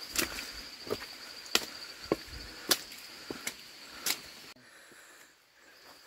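Footsteps through forest undergrowth, twigs snapping and leaves crunching in a walking rhythm, with a steady high insect trill behind. About four and a half seconds in, the sound drops abruptly to a quieter background.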